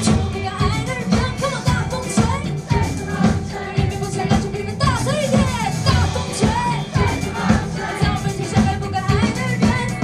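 A live band song with a lead vocalist singing into a handheld microphone through the PA, over a band with a steady drum beat.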